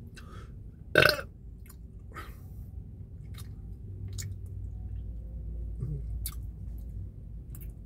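Mouth sounds of a man tasting a sip of energy drink: lip smacks and tongue clicks, with one much louder smack about a second in.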